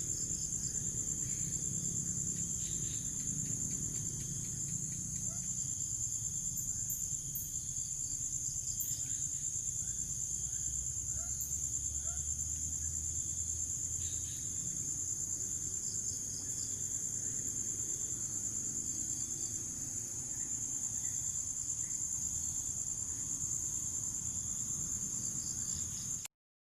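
A steady, high-pitched insect chorus of crickets trilling, over a low rumble, cutting off suddenly near the end.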